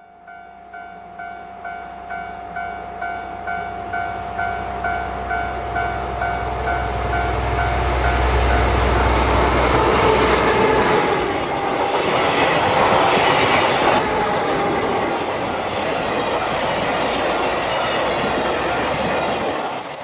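A level-crossing bell dings a little over twice a second while a JR Freight DF200 diesel locomotive approaches, its engine rumble growing louder until it passes about ten seconds in. The container flatcars then roll by with steady wheel and rail clatter.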